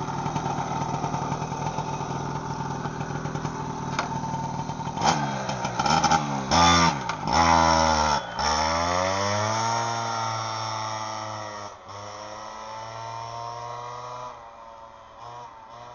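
Honda Camino moped's two-stroke engine, tuned with a 70cc Athena cylinder kit and a Leovince exhaust. It runs steadily at first, then is revved in several quick blips between about five and eight seconds. It then pulls away, its pitch climbing as it accelerates and the sound fading as it rides off.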